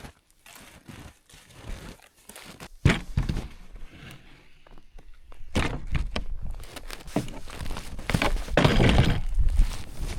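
Irregular thumps with cracking and rustling of wood and branches as cut poplar is cleared, the densest and loudest stretch coming in the last few seconds.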